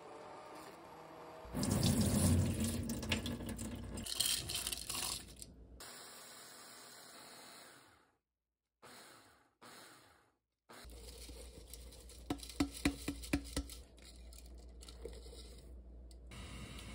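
Stick blender running in a stainless pot, puréeing cooked pumpkin in liquid with a wet, splashing whir, loudest in the first few seconds. After two short breaks, an electric chopper runs, grinding soaked rice, with a cluster of sharp clicks in the middle.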